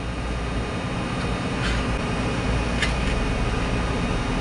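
A steady low hum of background machine noise, with a few faint knife taps on a wooden cutting board as cooked chicken liver is chopped.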